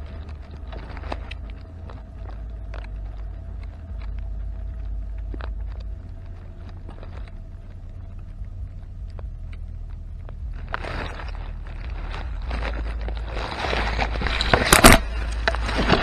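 Bailey V5 paramotor trike engine running under heavy wind rumble on the microphone. The noise swells from about eleven seconds in, with a loud crackling burst near the end.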